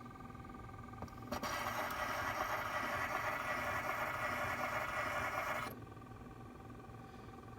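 Phonograph playing back a home-cut acetate disc. About a second in the needle goes down and a loud scratchy hiss of surface noise runs for about four seconds, then stops abruptly, with no clear voice coming through. The cutter's too-wide stylus is thought to be locking the grooves.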